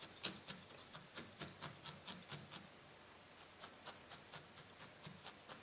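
Felting needle stabbing repeatedly through wool, faint soft pokes about four a second, with a short pause about halfway.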